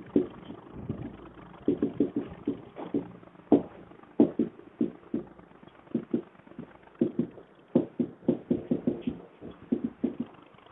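Marker writing on a whiteboard: a run of short taps and scratches as the strokes of the letters are made, in irregular clusters with brief pauses.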